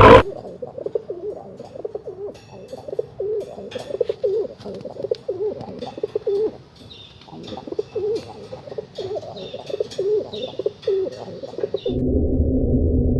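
Pigeons cooing: a run of soft, repeated warbling coos with a few faint higher chirps. Near the end it switches abruptly to a louder, steady low droning sound.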